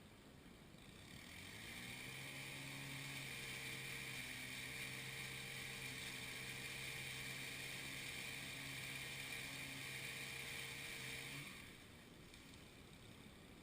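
An engine running at a steady speed for about ten seconds, rising in about a second in and dying away near the end.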